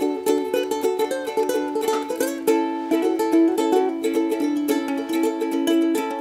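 Background music with a steady rhythm.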